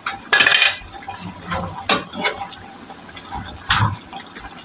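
Pork, fried tofu and potatoes simmering in a brown sauce in a wok: the sauce bubbles with scattered pops, the fullest burst about half a second in.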